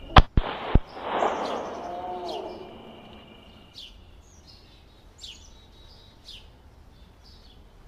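A shot from a wooden matchstick slingshot bursting a balloon: three sharp snaps within the first second, the first the loudest, then a hiss that fades away over about two seconds. Birds chirp every second or so.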